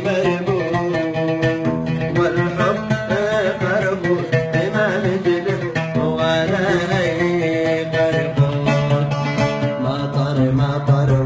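Yemeni song, instrumental passage: a plucked-string melody over a sustained low accompaniment.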